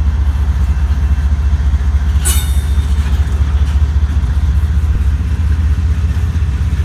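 Double-stack intermodal freight train rolling past close by: a steady, loud low rumble of the well cars' wheels on the rails, with one brief metallic clank about two seconds in.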